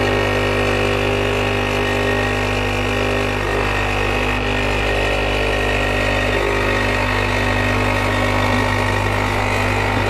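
Nespresso Inissia capsule coffee machine brewing a large cup: its vibratory pump runs with a steady buzzing hum as coffee pours into the cup.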